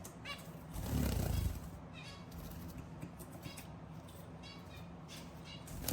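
Zebra finches calling: short nasal beeps repeated every half second to a second, with a low thump about a second in.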